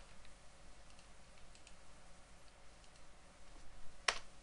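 Computer keyboard and mouse clicks: a few faint scattered clicks, then one sharp, louder click about four seconds in.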